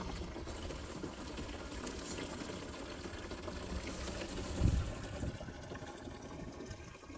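Water poured steadily from a plastic jerrycan into the pipe of a borewell water pump, priming the pump. A low thump comes about four and a half seconds in.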